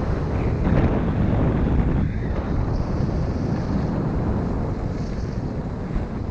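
Wind rushing and buffeting over a GoPro Hero 6 Black's microphone during a fast ski descent, with the steady hiss and scrape of skis running on snow.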